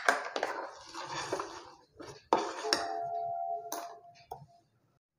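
A metal spoon stirring curdled milk in a stainless steel pan, with swishing of the liquid and several clinks of the spoon against the pan's side, some left ringing. The milk is splitting into chhena and whey.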